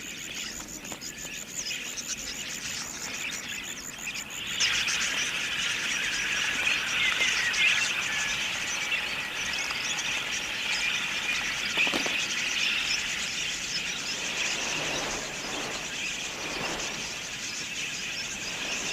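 Insects trilling in a fast, even pulse, then about four and a half seconds in a flock of wild budgerigars breaks into dense, continuous chattering chirps.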